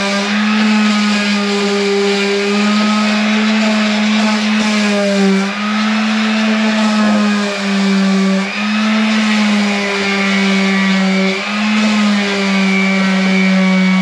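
Two small electric power tools, a cordless drill and a corded rotary tool, running together with a steady whine, their speed dipping and stepping slightly every second or two as they work paint off copper nail heads.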